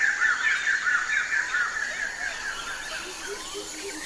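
Birds calling: a dense run of rapid, repeated chirps that thins out after about two seconds, followed by low cooing notes near the end.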